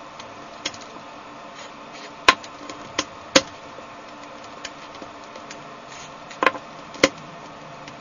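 Rubik's cube being worked on for lubrication: about six sharp plastic clicks at uneven intervals, two close together a couple of seconds in and two more near the end, as edge pieces are popped out and snapped back into the cube.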